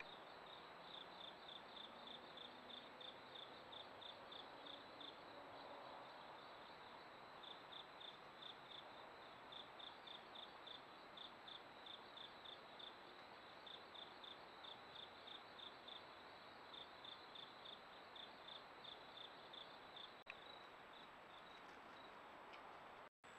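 A cricket chirping at night, short high chirps about four a second in runs with brief pauses, faint over the steady hiss of the trail camera's microphone.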